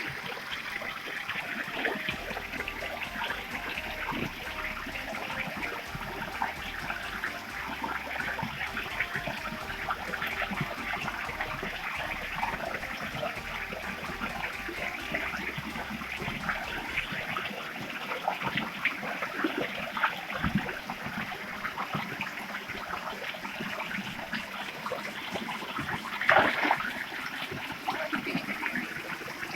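Water of a waterfall-fed stream rushing and splashing steadily, with a brief louder noise about 26 seconds in.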